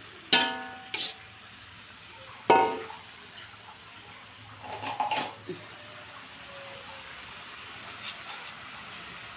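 Metal spatula clanking and scraping against an aluminium wok while genjer is stir-fried: sharp ringing knocks about a third of a second in, at one second and at two and a half seconds, then a quick cluster around five seconds. A faint steady frying hiss runs underneath.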